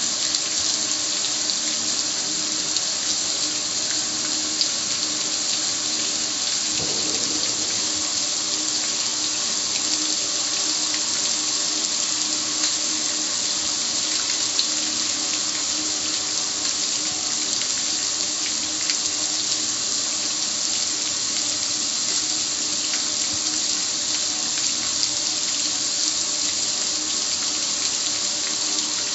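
Garden hose spray nozzle spraying a steady jet of water onto the metal lid and control panel of a gas grill, with water splashing and running off.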